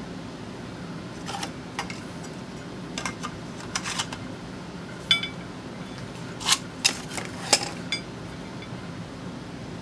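Scattered light clicks and metallic clinks of a steel brake rotor and small hand tools being handled on a workbench. One clink about five seconds in rings briefly, and the sharpest clicks come close together near the end. A steady low hum runs underneath.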